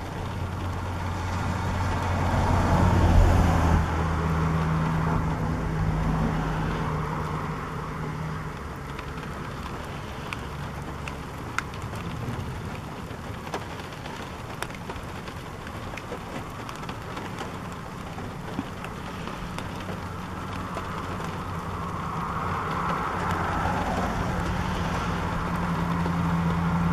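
Motor vehicles passing on a road: a low engine hum swells a few seconds in, fades, and builds again near the end. Underneath is a steady wash of rain and wind, with a few faint ticks.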